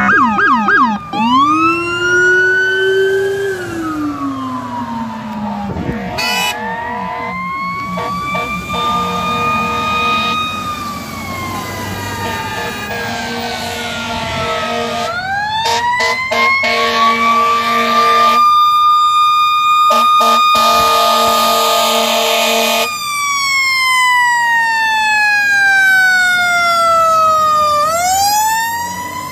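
Fire apparatus sirens wailing, each cycle rising slowly, holding and then falling. Steady horn blasts break in around the middle, with the longest a few seconds long.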